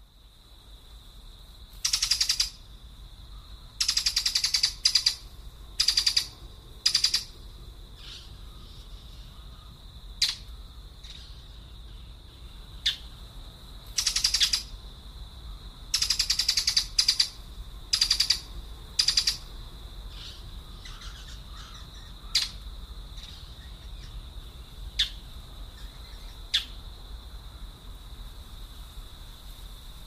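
A bird giving harsh, noisy chattering calls in short bursts of about half a second, coming in quick clusters, then only a few single short calls near the end. A steady high-pitched tone runs underneath.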